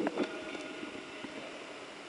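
Water splashing around a speargun being handled at the surface of a pool, with two sharp clicks near the start. A faint steady tone lasts about a second after them.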